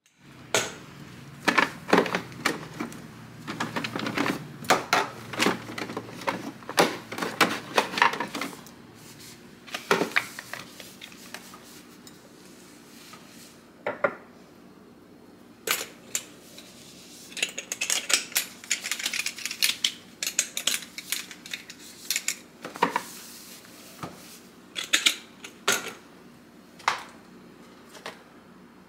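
Dishes and the parts of a milk frother clinking and clattering as they are handled and taken apart for cleaning: irregular small knocks and clicks, busiest at the start and again in the second half, with a sparser stretch in between.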